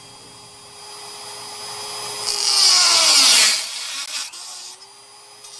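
Handheld electric rotary tool whining at speed as it cuts into the time capsule's box. The cut grows into a loud high grinding hiss about two seconds in, and the motor's pitch drops under the load. It stops about three and a half seconds in, and the tool is started up again about a second later.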